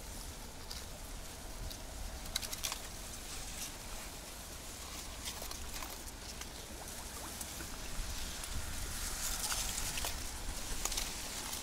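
Rustling with scattered light clicks and ticks, growing busier and a little louder near the end.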